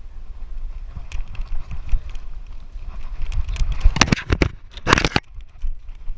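Movement noise on a GoPro action camera during a dog's game of fetch: quick low thuds and rumble, with two loud rushing bursts at about four and five seconds in.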